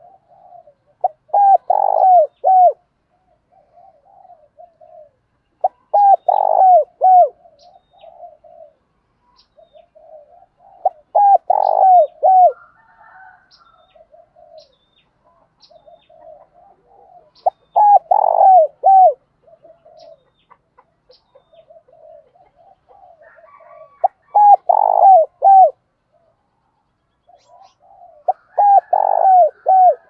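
Spotted dove cooing. A loud phrase of three or four falling coo notes comes about every five seconds, six times, with softer coos in between.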